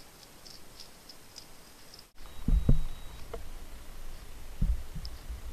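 Faint light ticking and pattering from a small African hedgehog moving about on a hard floor, then a few low thuds about half a second apart, with two more near the end.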